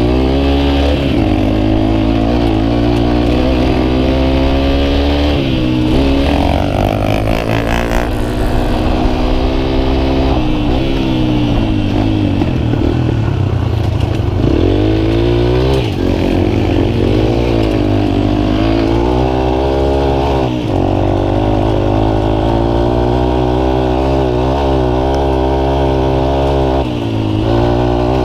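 Yamaha XTZ 125's single-cylinder four-stroke engine with a Wacs aftermarket exhaust, heard from the rider's seat as the bike is ridden along a dirt trail. The engine note rises and falls over and over as the throttle opens and closes, with several brief dips.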